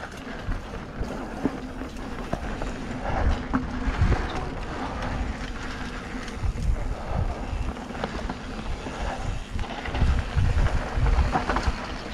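Mountain bike descending a dirt singletrack, recorded from the rider's camera: wind rushing over the microphone and tyres rolling over dirt, with irregular low thumps as the bike hits bumps and roots.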